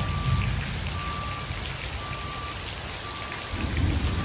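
Heavy rain pouring steadily. A low rumble swells near the end, and a faint beep repeats about once a second.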